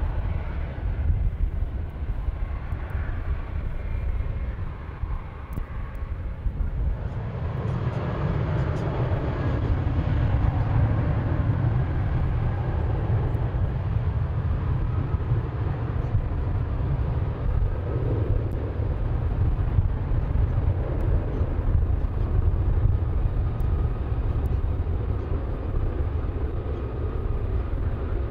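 An airliner's engines running, with wind buffeting the microphone; the engine noise swells about seven seconds in and stays up.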